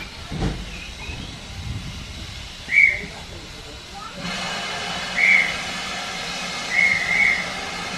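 Steam locomotive standing with its train: a steady steam hiss starts about four seconds in, and short, high whistle blasts sound once before it, once after it and twice in quick succession near the end.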